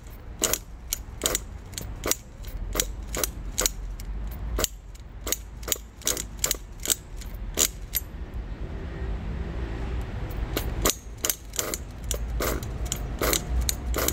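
Pull-starter of a Kyosho Inferno ST 1/8 nitro truggy engine yanked over and over, a sharp ratcheting click with each pull, about two a second, with a short pause past the middle. The engine turns over without firing, still stiff because it is not yet broken in.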